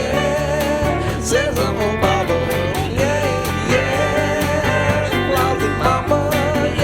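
Soundtrack music: an upbeat country-rock song with guitar, bass and drums keeping a steady beat, in an instrumental break between sung verses.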